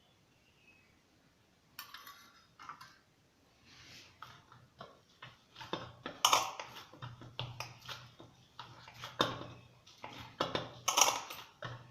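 Hands kneading a stiff, freshly oiled wheat-flour and gram-flour dough: irregular squishes and slaps with small knocks against the bowl, starting about two seconds in and getting busier from about six seconds in.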